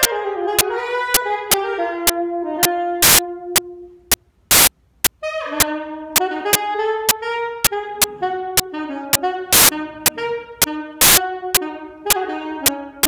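Solo saxophone playing a bluesy line of short notes, with sharp clicks on a steady beat about twice a second; the playing pauses for about a second some four seconds in while the clicks go on.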